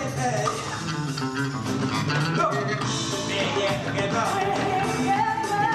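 Music playing, with a singing voice.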